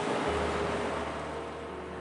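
Ocean waves: a wash of surf swells up at the start and slowly eases off, with a soft, steady music drone underneath.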